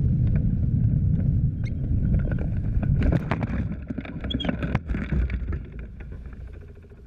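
Wind rushing over the microphone of a hang glider flying in low, dying away as the glider slows to a stop. From about three seconds in, a run of knocks and scrapes as the glider touches down on the grass.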